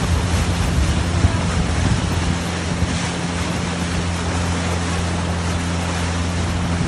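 Steady drone of the engine on the bangka outrigger boat carrying the recorder, with wind and rushing water noise over it.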